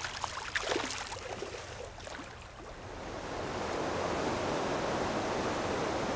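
Flowing river water: a few faint small splashes in the first two seconds, then a steady rush of water that swells in from about three seconds in and holds.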